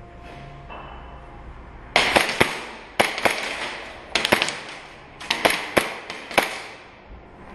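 Airsoft pistols firing about a dozen sharp shots in five quick bursts, starting about two seconds in, each shot trailing off in a short echo.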